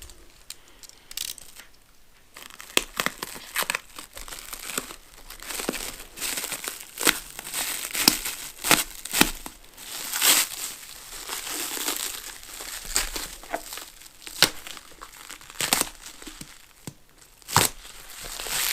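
Packaging being unwrapped by hand: irregular crinkling and rustling with sharp crackles and tearing, dropping off briefly about two seconds in.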